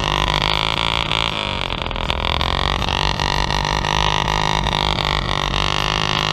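Honda Fourtrax single-cylinder four-stroke engine running while the ATV sits deep in water, a steady drone whose pitch rises and falls a few times as the throttle is worked.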